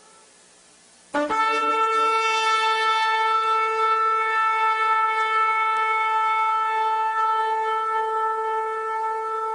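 Shofar (ram's horn) blown in one long, steady note that starts suddenly about a second in after a short pause.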